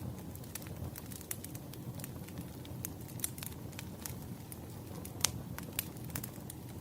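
Firewood burning: a steady low rush of flame with frequent sharp crackles and pops, the loudest pop about five seconds in.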